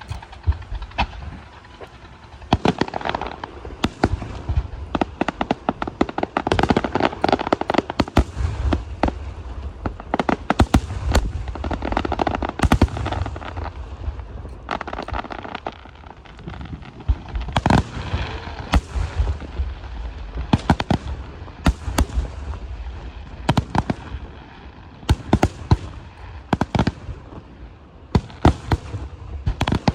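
Aerial fireworks going off in a continuous barrage: many irregular sharp bangs, some in quick clusters, over a low rumble and crackle from the bursting shells.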